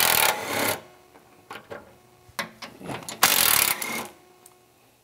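Socket ratchet turning out the 10 mm bolts of a windage tray: two short runs of rapid clicking, one at the start and one about three seconds in, with a few single clicks between.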